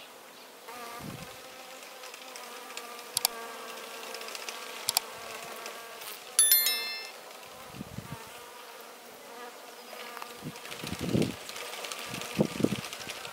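Bees buzzing in a steady hum. About six seconds in there is a short, bright chime of high tones, the loudest moment, and a few low thumps come near the end.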